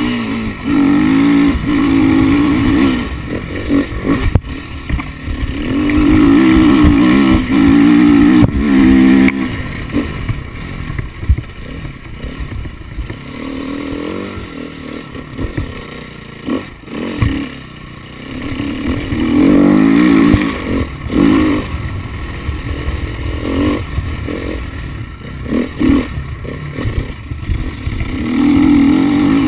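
KTM 350 XCF-W single-cylinder four-stroke dirt bike engine under way, revving hard in several loud spells (near the start, around six to nine seconds in, around twenty seconds and near the end) with quieter stretches of lighter throttle between them.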